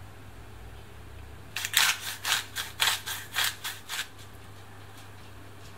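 A ladle stirring thick pumpkin soup in a stainless steel pot, scraping and knocking against the pot. It makes a run of quick strokes, about four a second, for a couple of seconds starting a second and a half in.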